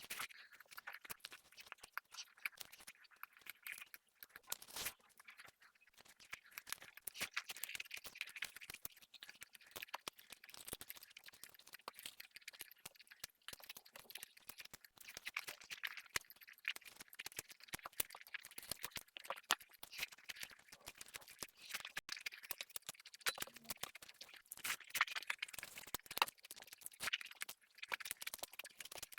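Close-miked eating sounds: soft, irregular crunching and clicking from chewing food.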